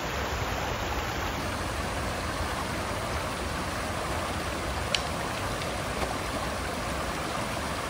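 Shallow rocky stream rushing steadily over boulders in small rapids, with one sharp click about five seconds in.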